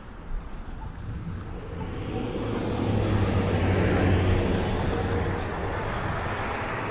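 A car passing on the street. Its engine hum and tyre noise build over the first few seconds, are loudest about three to four seconds in, then ease off.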